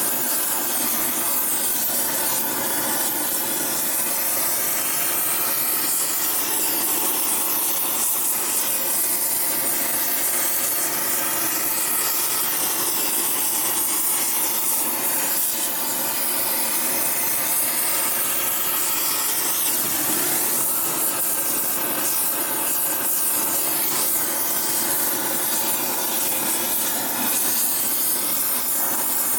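Gas torch flame hissing steadily while it preheats an aluminium Harley-Davidson panhead cylinder head before welding.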